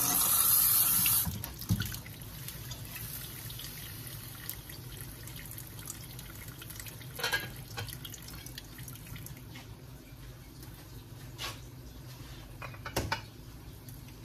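Kitchen sounds at a stove: a loud rush of noise for about two seconds at the start, then a steady low hum with a few light clinks of cookware, one as the pot lid is handled.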